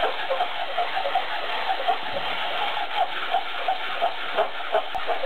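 A Polaroid camera's plastic body being sanded back and forth on a full sheet of sandpaper, a steady scraping with about four strokes a second. The strokes flatten the sawn front edge.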